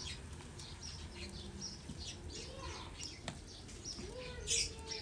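Small birds chirping, with scattered crackles from a wood fire burning under an iron tawa and one sharp snap about three seconds in.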